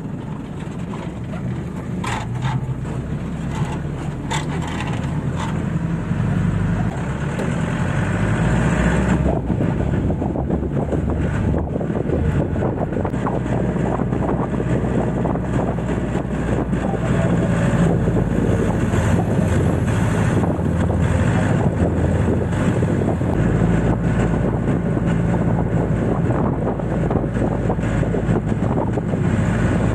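Jeep engine running and road noise heard from aboard the moving vehicle, with wind buffeting the microphone. The engine note shifts in steps, the noise builds over the first several seconds and then holds steady, and a few sharp knocks come in the first few seconds.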